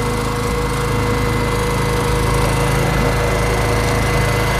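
Engine of a squid-fishing boat running steadily: a constant drone with a steady high whine.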